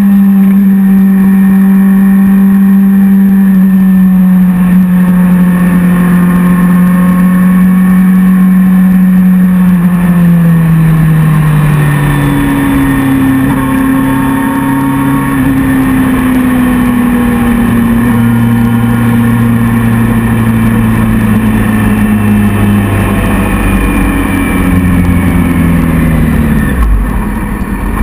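Motorcycle engine running at road speed, its note falling steadily as the bike slows from fast cruising. There is a shift in the engine pitch about eleven seconds in, and a further drop near the end as it eases off.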